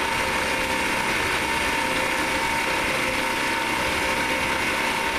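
Knee mill's spindle running with an end mill cutting the teeth of a 17-tooth gear blank on a rotary table: a steady machining noise with a constant whine.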